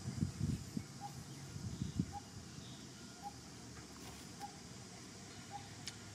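Outdoor ambience: a bird repeating a short, even note about once a second, with low rumbling in the first two seconds and a single sharp click near the end.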